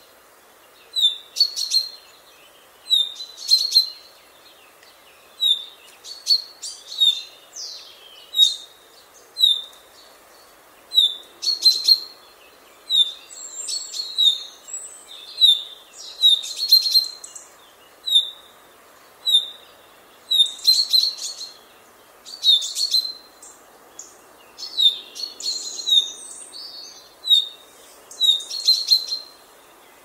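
Common chaffinch (Fringilla coelebs) vocalising: short, sharp, high notes repeated about once or twice a second, broken up by bursts of quicker notes, over faint outdoor background noise.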